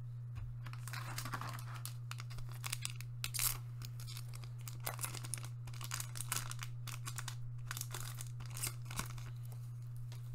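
Foil trading-card booster pack being crinkled and torn open: a run of crackling rustles with several sharper tearing crackles, the loudest about three and a half seconds in, over a steady low hum.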